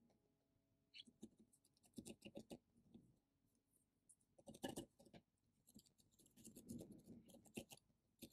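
Faint scratching and rustling of hands handling loose curly wool fibres on a needle-felting mat, with light quick pokes of a multi-needle felting tool into the wool toward the end.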